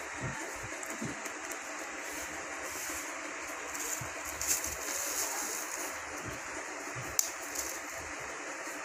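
Steady background hiss, with a single sharp crack about seven seconds in as an egg is knocked against the rim of a stainless steel mixing bowl.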